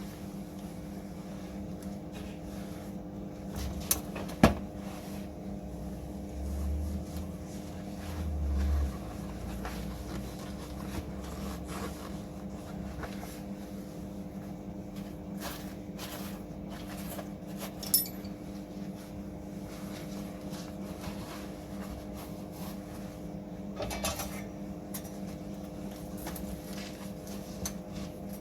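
Steady workshop machine hum under scattered metal taps, clicks and knocks as a repair panel is fettled ahead of welding, with a sharp knock about four seconds in, two dull thuds a few seconds later and another sharp click near the middle.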